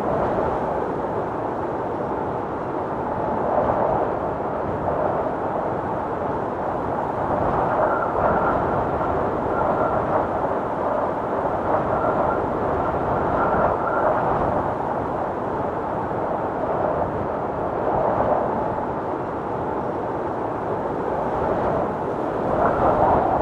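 Windstorm: strong wind blowing steadily with slow gusting swells, and a faint high whistle from about 8 to 14 seconds in.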